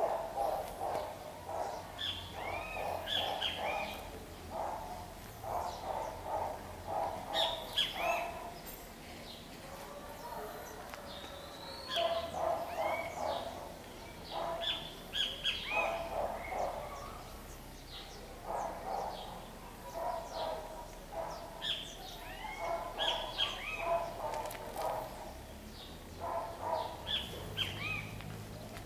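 Birds calling: repeated bouts of fast, low trilled notes every few seconds, with short, higher rising chirps over them.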